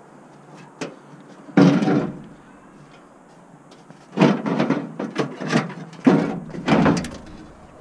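Sheet-metal front fender of a first-generation Dodge Ram pickup being yanked and rattled by hand, giving a loud clatter a little under two seconds in and then a run of irregular metal bangs and clanks from about four seconds in. The fender won't come free: it is still held on by a hidden bolt.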